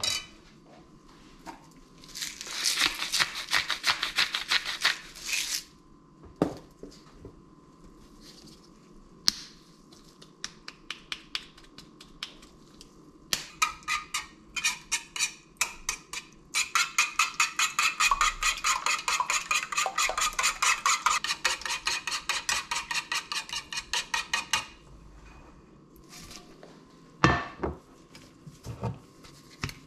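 A wire whisk and a fork beat eggs and soft cheese in a shallow dish: long spells of rapid, rhythmic clinking of metal against the dish, with sparser strokes in between. Near the end comes a single loud knock as a frying pan is set down on a glass-ceramic hob.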